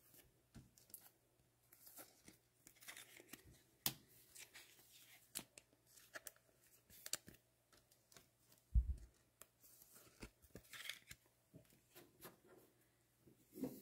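Trading cards being handled on a table: scattered light clicks and papery rustles, with a soft thump about nine seconds in.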